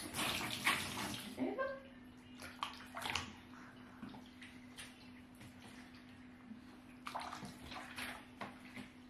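Bath water splashing and trickling in short spells as a baby is washed in a small plastic baby bath, with water poured over the baby from a cup; the splashing is loudest in the first second or so. A faint steady hum runs underneath.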